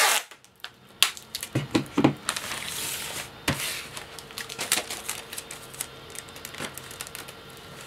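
Plastic postal satchel crinkling as it is handled and turned over on a cutting mat, with scattered sharp clicks and taps and a longer rustle a little past two seconds in.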